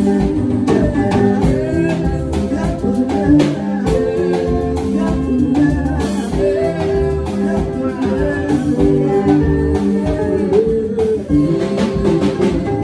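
Yamaha electronic keyboard being played: a melody of held notes over a bass line and a steady drum beat.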